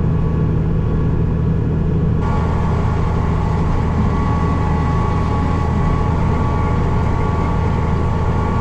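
Farm tractor's diesel engine running steadily under load. About two seconds in, a steady higher-pitched whine joins it and holds.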